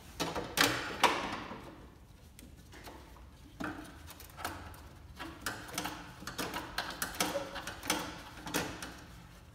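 Ratcheting box wrench working a bolt on a car's clutch master cylinder: two sharp metallic knocks with a ringing tail about half a second and a second in, then a run of irregular light clicks and taps.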